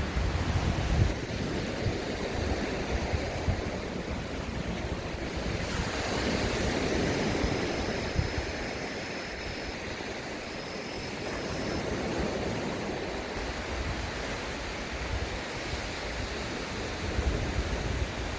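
Sea waves washing on a beach in a steady hiss, swelling with one wash about six seconds in. Wind buffets the microphone with a low rumble, strongest at the start and near the end.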